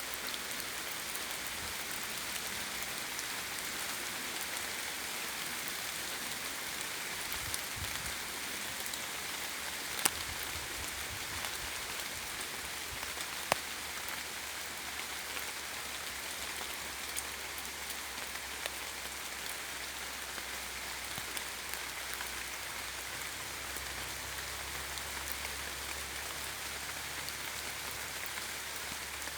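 Steady rain falling in a forest: an even hiss of drops on leaves, with scattered individual drop ticks, two sharper and louder about 10 and 13.5 seconds in.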